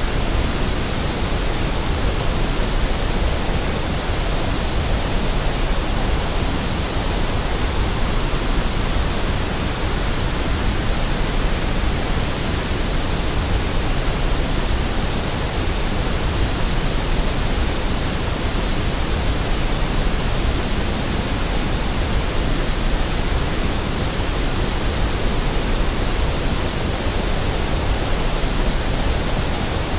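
Steady white noise: an even, unchanging hiss spread across all pitches from low to high.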